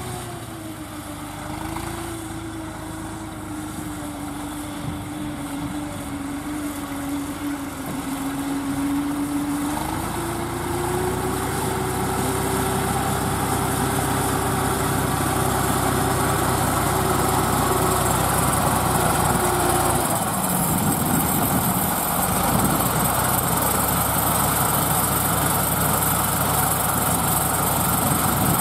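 Deutz D5006 tractor's air-cooled diesel engine running steadily while it pulls a straw roll baler, getting louder as it approaches. A whining tone dips slightly, rises about ten seconds in, and stops about twenty seconds in.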